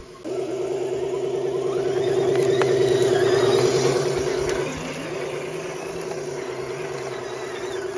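Electric RC crawler's motor and drivetrain whining steadily as the truck drives over dirt. It grows louder toward the middle and drops back a little after about four and a half seconds.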